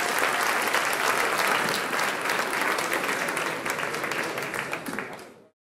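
Audience applauding, a dense patter of many hands clapping that tapers off and cuts off abruptly near the end.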